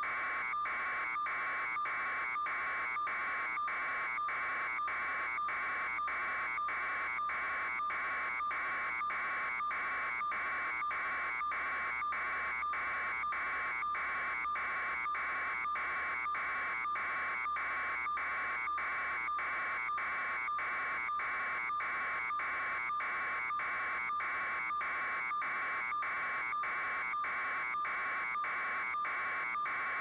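A steady buzzing noise that pulses evenly about twice a second, unchanging in level.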